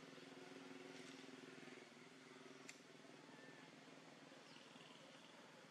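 Near silence: faint outdoor ambience with a low steady hum that eases after about two seconds, and one faint sharp click near the middle.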